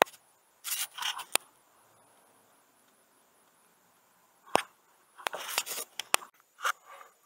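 Handling noise: several sharp clicks and short scraping rustles, in two clusters, with a quiet stretch of about three seconds between them.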